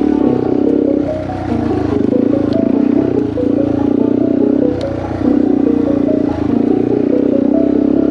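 Yamaha TW200's air-cooled single-cylinder four-stroke engine running under load on a sandy trail, the throttle easing off and coming back on several times. A few sharp clicks of clatter from the bike or trail are mixed in.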